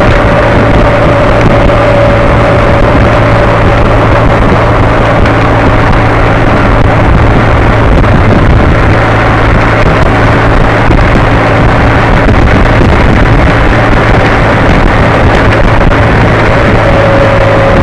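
Motorcycle engine running steadily at cruising speed, heard on board with wind rushing over the microphone. A higher whine in the engine note fades after the first few seconds and returns near the end.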